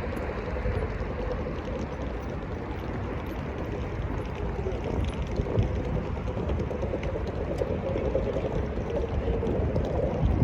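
Wind buffeting the microphone over a steady low hum of distant engines, with no single event standing out.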